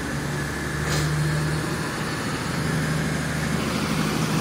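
Class 222 Meridian diesel multiple unit pulling slowly out of the station, its underfloor Cummins diesel engines running with a steady low hum.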